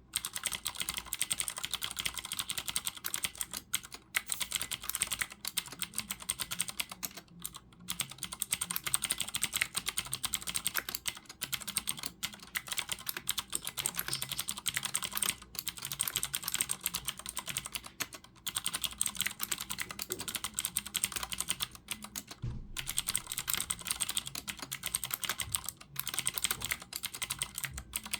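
Fast, continuous typing on a Ducky Shine 4 mechanical keyboard with clicky blue (Cherry MX Blue) switches: a dense run of crisp key clicks, with a few brief pauses.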